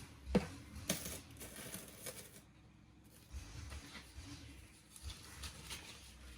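Scattered light clicks and rattles, with two sharper clicks in the first second, from hands handling a plastic pot and loose granular mineral potting substrate such as pumice and perlite.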